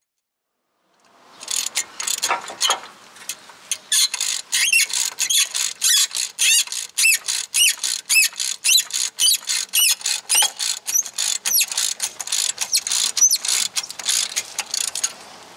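Ratchet wrench clicking through rapid back-and-forth strokes, several clicks a second, starting about a second in, with high metallic squeaks among the clicks as a stuck bolt is worked loose.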